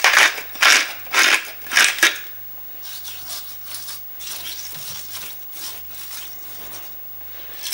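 Stainless-steel salt mill grinding coarse sea salt in four quick crunchy bursts about half a second apart, then softer rubbing as the salt is worked into raw steak by hand.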